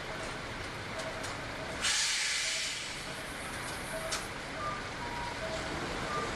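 A bus's pneumatic air release: a sudden loud hiss about two seconds in that fades over about a second, over steady street traffic with faint short beeps recurring.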